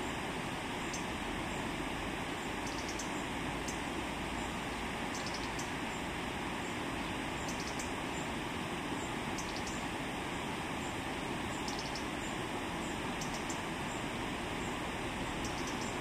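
River water rushing steadily, with faint, short high-pitched chirps repeating every second or so above it.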